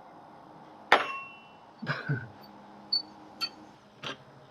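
Metal tools clanking and clinking against each other or the wheel: one loud ringing clank about a second in, then a double knock and several lighter clinks.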